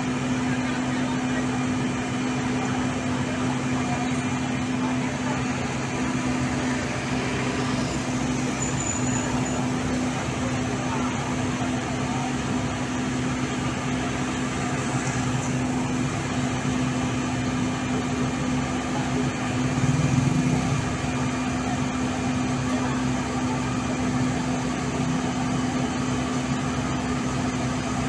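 Heavy diesel engine running steadily with an even, constant hum, swelling briefly louder about twenty seconds in.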